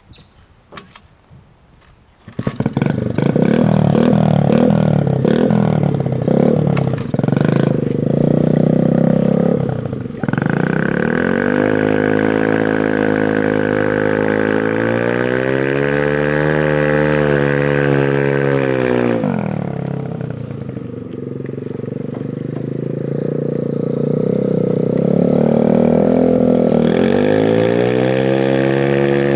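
A minibike's small engine starts about two seconds in and runs loud. Its revs rise and fall in a long swell, drop lower for a while, then climb again near the end as the bike pulls away.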